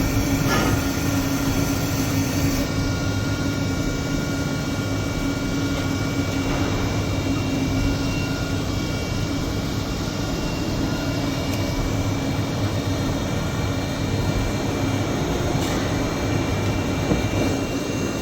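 2015 Tsugami BO325-II CNC Swiss lathe running a program dry, with no part being cut: a steady machine hum with several steady whining tones that start and stop as the program steps through its moves, and a couple of faint clicks.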